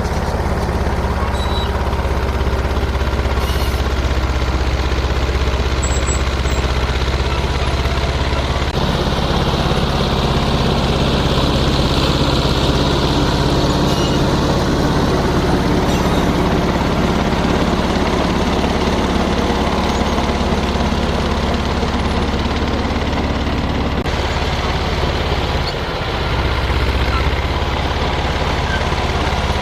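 John Deere 450 crawler dozer's engine running steadily. Its note shifts about a third of the way in and dips briefly near the end.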